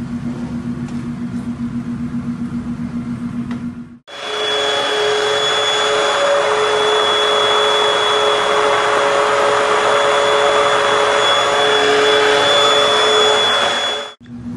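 A steady low hum, then, a few seconds in, a commercial stick blender starts at full speed blending thick tikka sauce. It runs for about ten seconds as a loud, even motor noise with a steady whine, and stops abruptly near the end.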